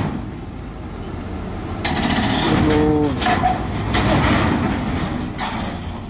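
Excavator diesel engine running hard under load, with surges of clanking and scraping from its steel tracks on a trailer deck, three times, and a short metallic squeal about two and a half seconds in.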